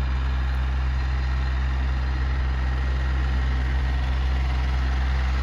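Engine of a tilling machine running steadily while the garden is tilled, an even low drone.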